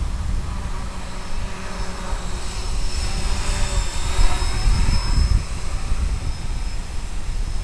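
Propeller aircraft droning as it passes, swelling about halfway through and then fading, over steady wind rumble on the microphone.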